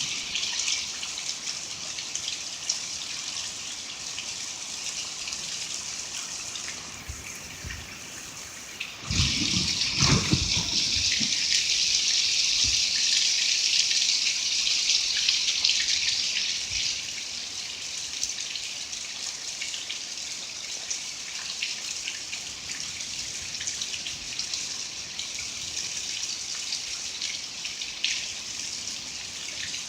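Rain mixed with small hail falling, a steady hiss with scattered ticks. About nine seconds in it gets clearly heavier for several seconds, with a brief low rumble as it picks up, then eases back.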